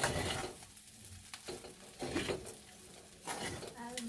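A pan of rice and minced chicken being stir-fried: the stirring utensil scrapes against the pan in irregular strokes over a low sizzle.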